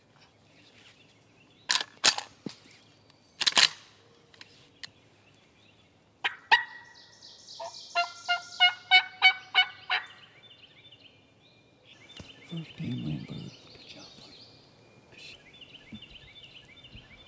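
Turkey yelping: a run of about ten evenly spaced notes near the middle. Before it come several sharp clicks or snaps, and softer repeated high notes follow near the end.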